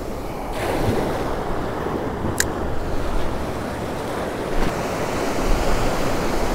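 Ocean surf breaking and foaming around a wader in the shallows, a steady wash that swells about half a second in, with wind rumble on the microphone. A short sharp click sounds about two and a half seconds in.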